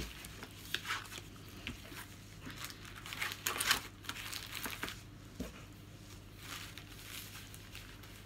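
Hands handling crinkly wrapping, with irregular rustling and crinkling, loudest about three and a half seconds in, and a few light clicks.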